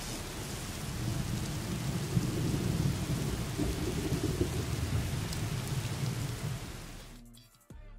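Sound effect of rumbling thunder with a steady rain-like hiss, dying away about seven seconds in.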